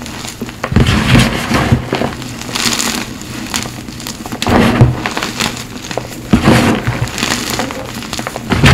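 Hands squeezing and crumbling soft lumps of Cap gym chalk, a crunching sound that comes in several separate squeezes a second or two apart.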